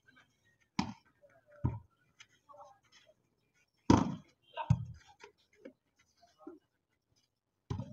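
Volleyball struck by players' hands and arms during a rally: several sharp slaps, the loudest about four seconds in at a block at the net.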